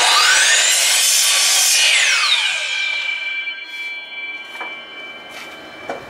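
DeWalt miter saw switched on and cutting down a wooden drawer track: the motor whine climbs as the blade spins up through about two seconds of cutting, then winds down with a falling whine. A few light wooden knocks follow near the end.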